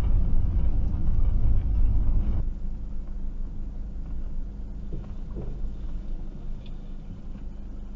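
Motorhome running slowly along a dirt track, heard from inside the cab: engine and tyre noise, mostly low. The noise drops about two and a half seconds in as the vehicle slows nearly to a stop.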